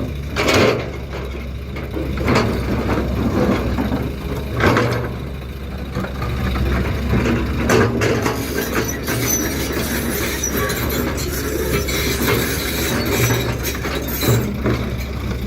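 Excavator and dump truck diesel engines running steadily, with sharp knocks and clatter every few seconds as stone is worked, and some high metallic squeals.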